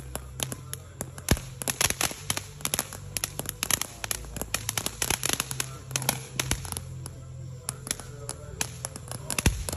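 Firecrackers and fireworks going off in rapid, irregular succession, several sharp bangs a second.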